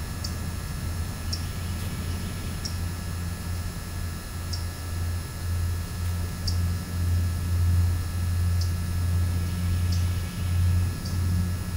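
Low pulsing drone of a passing propeller aircraft, growing louder about halfway through, with a small bird's short high chirps every second or two.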